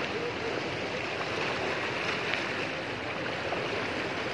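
Fast-flowing brown floodwater rushing past a riverbank: a steady, even rush of water.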